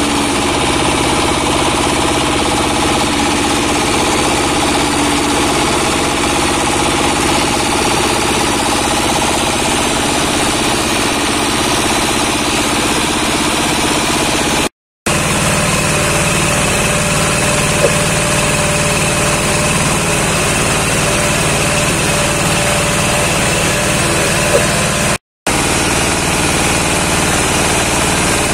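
Wood crusher belt-driven by a 24–26 HP single-cylinder diesel engine, running steadily under load while branches are fed into its hopper to be ground into sawdust. The sound breaks off very briefly twice.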